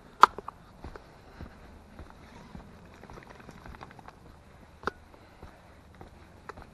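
Footsteps on a hard path at a steady walking pace, a little under two steps a second. A sharp, loud click sounds about a quarter second in, the loudest thing here, and another near five seconds.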